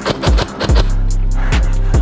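Background music with a steady beat and deep bass, dipping briefly in the first half second.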